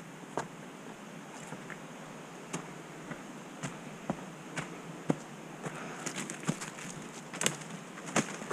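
Footsteps of a person walking down a dirt trail: irregular short steps and scuffs, about one to two a second and closer together in the second half, over a steady faint hiss.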